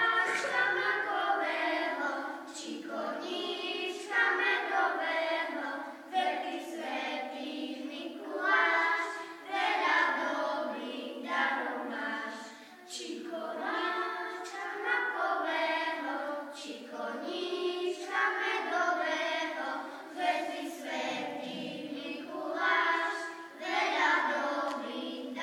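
A group of young children singing a song together, in phrases a few seconds long with short breaks between them.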